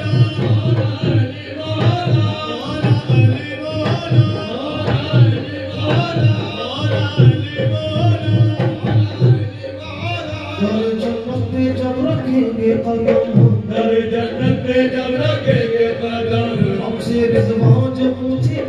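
Live qawwali music: tabla drumming in a steady, quick rhythm, with held notes joining about ten seconds in.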